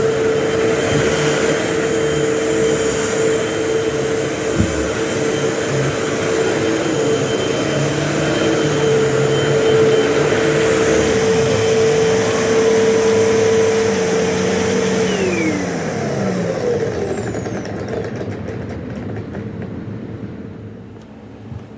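Vacuum cleaner running with a steady motor whine and a single knock about four seconds in, then switched off: its motor winds down, falling in pitch and fading over the last several seconds.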